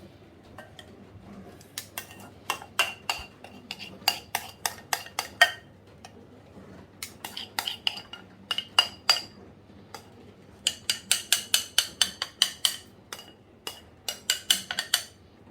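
A metal utensil clinking and scraping against cookware in quick runs of sharp, ringing taps, about four or five a second, in four bursts with short pauses between.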